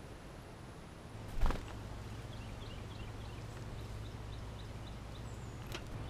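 A thump about a second and a half in, then a small songbird calling with a run of short high chips, about three a second, ending in a brief high falling whistle.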